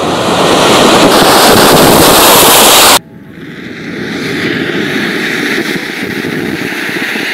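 Jet of flame from a cylinder packed with burning matches, giving a dense rushing hiss. About three seconds in it cuts off abruptly and is replaced by a quieter, steady hiss from a second match-powered jet.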